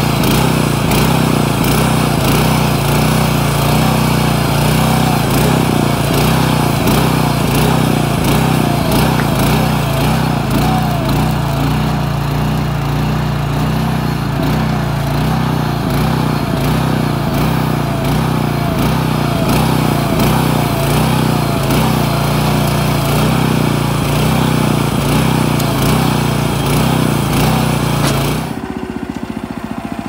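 Small 9.5-horsepower engine of a mini backhoe running steadily while driving its hydraulic pump as the bucket digs a trench. The sound drops away sharply near the end.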